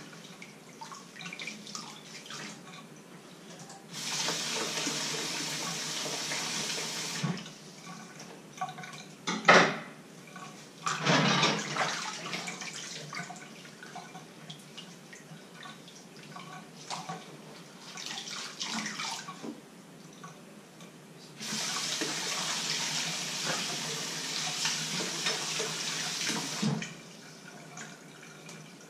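Hand dish-washing at a stainless steel sink: the tap runs twice for a few seconds each, and between the runs come scrubbing, small clinks and two sharp loud knocks, likely dishes or pans knocking in the sink.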